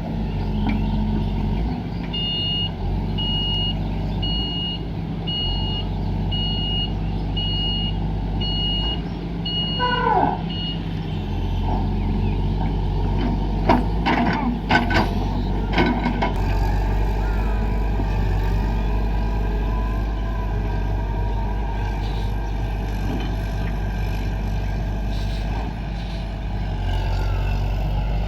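Excavator diesel engine running steadily while its warning alarm beeps about once a second for several seconds. Around ten seconds in there is a falling whine, followed by several sharp metallic clanks.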